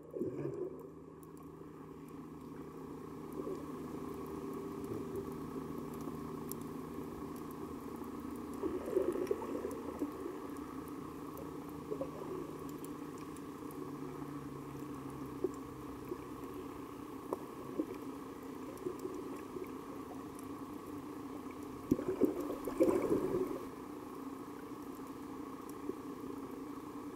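Underwater coral-reef ambience: a steady low hum with scattered sharp clicks and crackles through it. A louder rushing swell comes about nine seconds in, and a longer one comes a little past twenty seconds.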